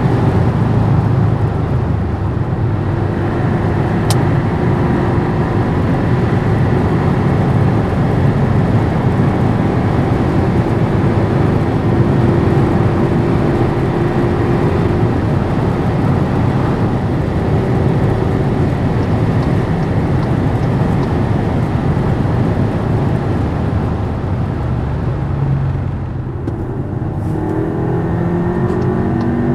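Skoda Superb 4x4 driving at high autobahn speed: a steady rush of wind and tyre noise over the engine's drone. Near the end the noise dips briefly, then the engine pitch climbs as the car accelerates again.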